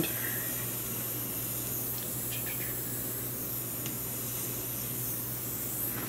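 Steady low hiss and hum of background room noise, with a few faint light clicks of small parts being handled about two seconds in.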